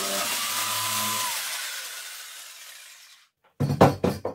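Jigsaw switched off just after finishing a cut through thick softwood, its motor and blade running down and fading over about three seconds. Near the end, a quick cluster of sharp wooden knocks, the loudest sound here, as the cut blocks are handled on the workbench.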